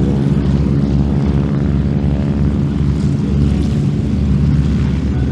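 North American SNJ/T-6 Texan's Pratt & Whitney R-1340 Wasp radial engine and propeller running steadily at an even pitch.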